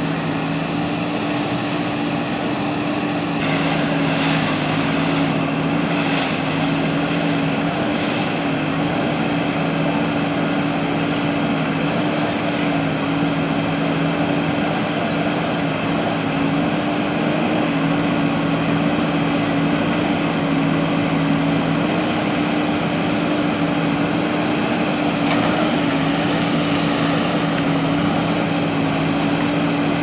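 Diesel engine of a JCB backhoe loader running steadily under load while the rear backhoe arm digs through concrete rubble. A few short knocks are heard around four to eight seconds in.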